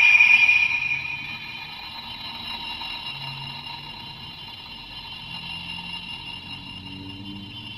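Electronic sound from the CSM OOO Driver toy's speaker: a sustained synthesized chord that comes in suddenly, loudest for about the first second, then holds as a steady ringing tone.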